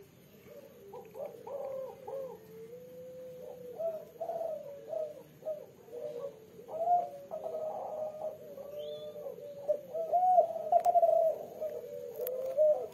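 A female derkuku dove cooing over and over, a run of low, rolling coos following one another without a break, in the three-beat 'kuk 3' pattern prized by keepers.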